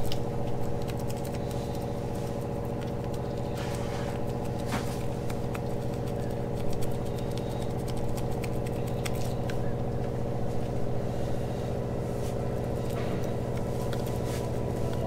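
Steady hum of a running motor, with light scratches and taps scattered through it, fitting a brush dabbing resin onto a fibreglass patch.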